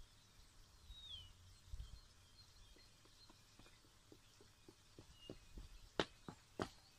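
Near silence, with a faint low rumble of wind on the microphone and one brief falling bird chirp about a second in. Then comes a run of small clicks and knocks, the two sharpest near the end, from fingers handling the earphones' in-line microphone.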